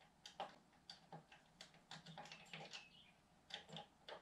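Key being jiggled in the small lock of a wooden machinist's tool chest: a series of light, irregular clicks and rattles. The key won't turn.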